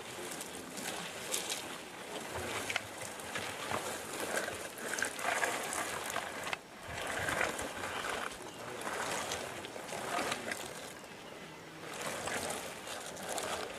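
Heavy buffalo carcass scraping and rustling over dry dirt and grass as it is dragged, in irregular surges with a brief lull about halfway through.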